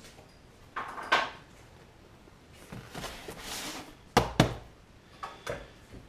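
Handling noises: a few clicks, a brief rustle, then two sharp knocks about four seconds in, as of something set down on a hard surface, and a couple of lighter clicks after.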